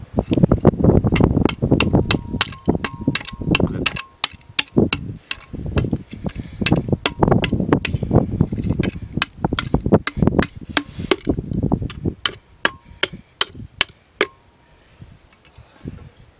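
A small pick-hammer striking a terracotta clay jug over and over to break it open: a fast run of sharp taps, about three a second, mixed with duller, lower knocks from the clay. The tapping stops about two seconds before the end.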